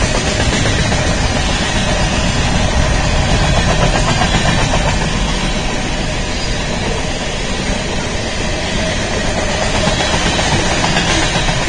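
Freight train cars rolling past at speed on the near track: a loud, steady noise of steel wheels running on the rails.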